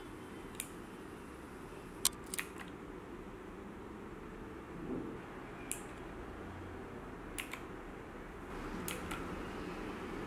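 Mechanical keys on a Divoom Ditoo retro pixel speaker being pressed one at a time: a handful of short, sharp clicks spaced a second or more apart, a few in quick pairs, over a faint hiss.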